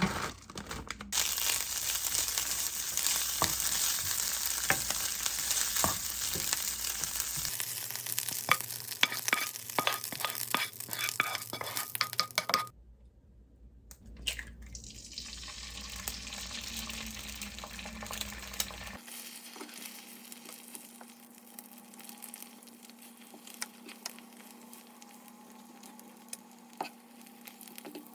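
Food sizzling in a hot frying pan, with the clicks and scrapes of stirring. After a cut about halfway through, the sizzle goes on more quietly.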